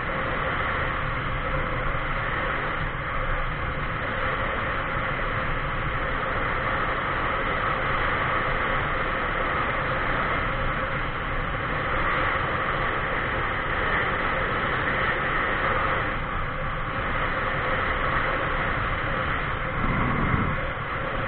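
Steady rush of wind on the microphone and road noise from a vehicle moving along a paved highway, briefly louder near the end.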